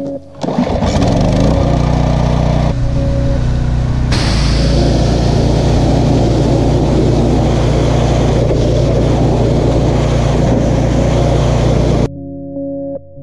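Pressure washer's motor starts up and runs steadily; from about four seconds in a loud hiss of high-pressure water spraying joins it. Both stop abruptly near the end, giving way to background music.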